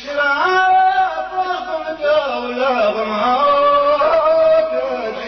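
A man singing solo in ahwash style, the Amazigh chanted poetry: long held notes that glide, falling in pitch about halfway through and rising again, with a brief break for breath about two seconds in.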